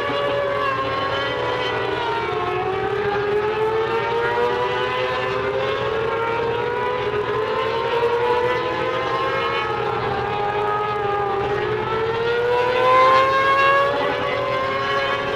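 A pack of mini sprint race cars running laps on a dirt oval. Their engine notes overlap and rise and fall in slow sweeps every few seconds as the cars accelerate down the straights and back off for the turns, swelling louder near the end.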